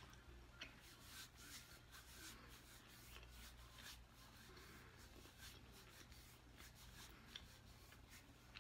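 Near silence: faint soft rustling with a few small clicks scattered through it.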